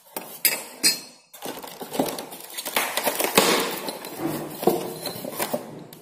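Small metal fittings clinking and rattling as they are handled: a wall bracket, dynabolt anchors and a safety valve. There are two sharp clinks in the first second, then a run of dense clattering.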